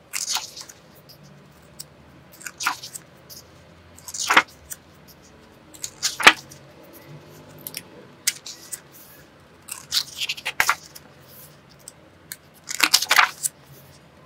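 Paper pages of a sketchbook being turned one by one by hand: a brief papery swish about every two seconds, with a faint low hum underneath.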